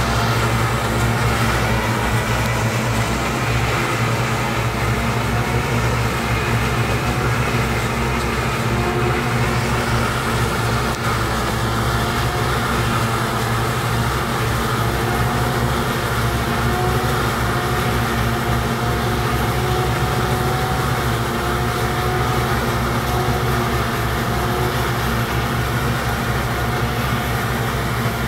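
JF forage harvester running steadily: a continuous machine hum with several steady tones that stays unchanged throughout.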